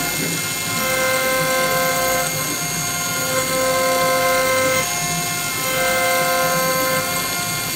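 Milling machine spindle running steadily while an end mill cuts a bone nut blank, with a stronger tone coming in three times, each for about a second and a half, as the cutter works along the bone.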